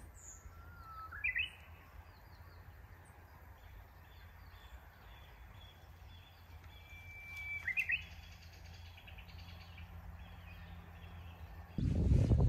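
Japanese bush warbler singing its 'hoo-hokekyo' song twice: each time a held whistle followed by a quick rising flourish, over a steady low rumble of wind. Music comes in abruptly near the end.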